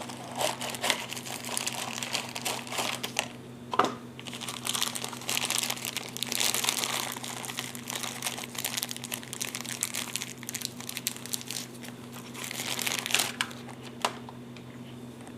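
Packaging crinkling and crackling in the hands, with scattered clicks, as the new garage door opener remote is unpacked and handled.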